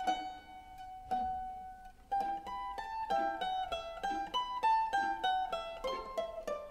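Background music: a melody of quick plucked-string notes that thins to a few held notes about a second in, then picks up again.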